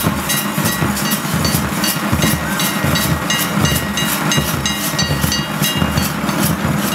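A troupe of large barrel drums beaten with sticks, playing a fast, steady beat, with short high ringing notes over the drumming.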